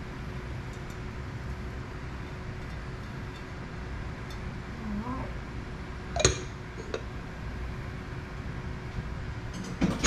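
Steady background hiss, with a ceramic bowl clinking sharply as it is set down into another bowl a little past halfway, and a smaller knock near the end.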